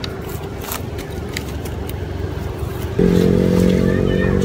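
A motor vehicle's engine running close by: a low rumble with a few light clicks, then about three seconds in a louder, steady engine hum sets in suddenly.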